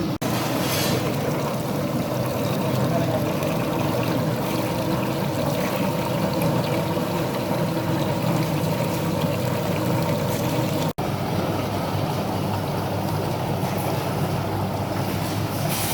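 Galangal peeling machine running steadily: an even motor hum with a constant churning noise. The sound drops out for an instant twice, just after the start and about eleven seconds in.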